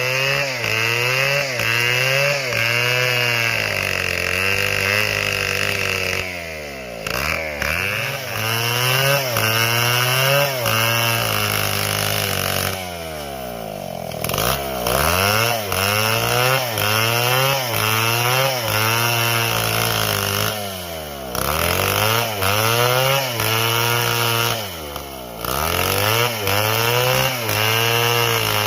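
Large two-stroke chainsaw cutting wood, its engine pitch wavering constantly as the chain loads and unloads in the cut. It drops back to lower revs briefly a few times before revving up again.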